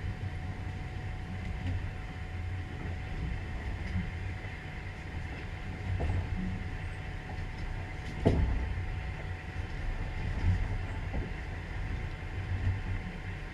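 Passenger train wheels running on the rails: a steady low rumble with a few sharp knocks, the loudest about eight seconds in.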